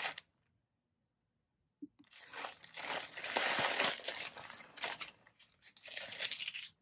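Plastic poly mailer crinkling and rustling as a folded t-shirt is packed into it, with some tearing sounds. The handling starts about two seconds in, after a silent gap, and goes on irregularly.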